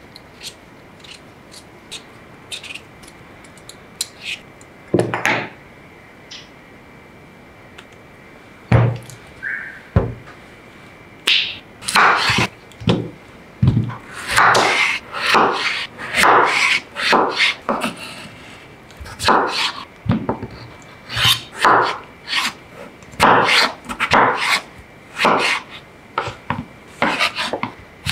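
A vegetable peeler scraping the skin off a raw potato in faint short strokes, then a kitchen knife cutting peeled raw potatoes into chunks, each cut ending in a knock on the wooden cutting board. The cuts grow frequent and loud about a third of the way in, one or two a second.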